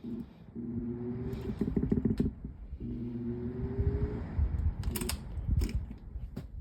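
Aerospeed box fan's motor on its low setting, humming with a faint rising whine twice as it struggles to come up to speed, with a few clicks and knocks. Low speed sometimes doesn't work on this fan.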